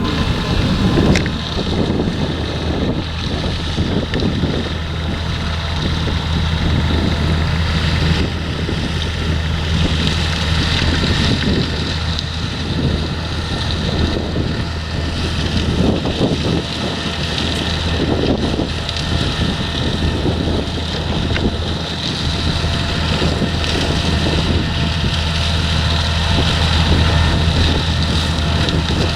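Heavy farm machinery at a potato harvest running steadily, a constant diesel engine drone with mechanical clatter, while wind buffets the microphone.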